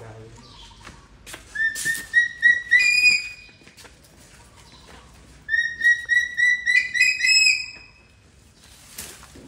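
Baby monkey giving two runs of short, high-pitched chirping squeaks, about five a second, each run stepping up in pitch near its end.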